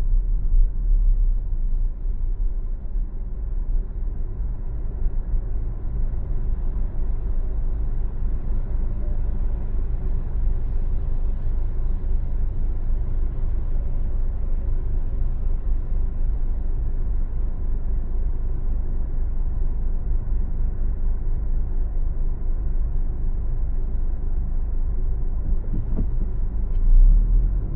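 Steady low road and engine rumble of a car driving, with a short swell in loudness near the end.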